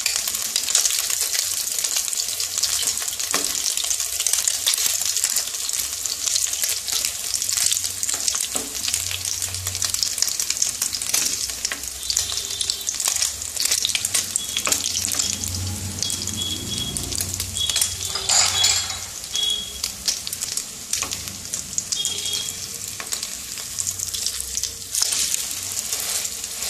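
Batter-coated bread sandwiches frying in hot oil in a non-stick kadai: a steady sizzle with dense crackling, and a wooden spatula scraping as it presses and moves the pieces in the pan.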